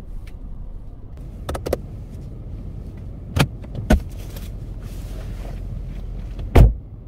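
Car engine running low and steady, heard from inside the cabin while the car creeps in reverse to park. A few clicks and knocks of handling inside the car, the loudest a thump near the end.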